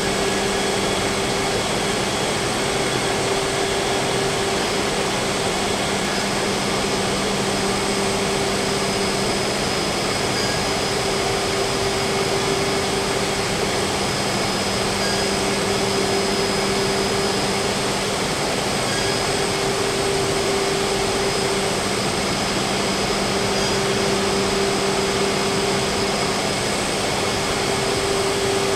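A Freedom Machine Tool Patriot 5x9 CNC router running, its spindle cutting a sheet panel: a steady whine over a rush of air, with a low hum that fades in and out every few seconds.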